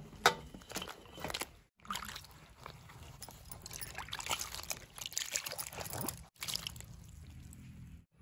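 Water sloshing and splashing in a steel bowl as hands wash peeled ash gourd strips, with water trickling off the pieces as they are lifted out. The splashing is broken by two brief gaps.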